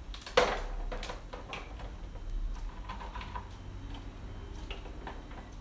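Irregular light clicks and taps of quail eggs and plastic incubator egg-turner racks being handled, the sharpest click about half a second in.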